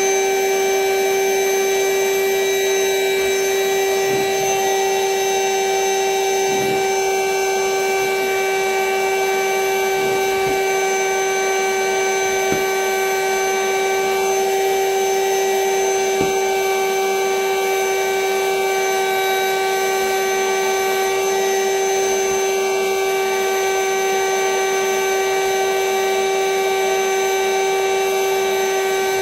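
Vacuum cleaner running steadily with a strong, even whine, drawing the air out of a vacuum storage bag packed with plush toys. A few soft knocks come through in the first half.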